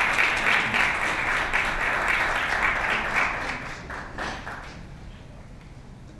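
Audience applause, loudest at the start and dying away over about five seconds.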